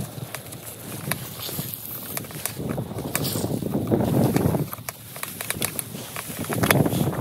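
Handling and movement noise: a nylon puffer jacket and a cloth rustling as hands are wiped, rubber boots stepping on grass, and wind buffeting the microphone in uneven gusts, loudest about four seconds in and near the end.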